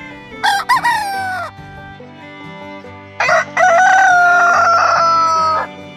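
Rooster crowing twice: a short call about half a second in, then a long crow about three seconds in, held for over two seconds and sinking slightly in pitch.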